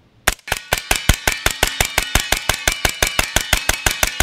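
Freedom Ordnance FX-9 9mm carbine fired semi-automatically in a rapid, even string, about five shots a second, starting a moment in. A metallic ringing carries between the shots.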